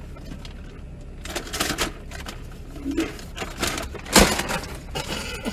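A handbag rustling and clattering as it is grabbed and swung, then a loud thump about four seconds in as the bag strikes a person.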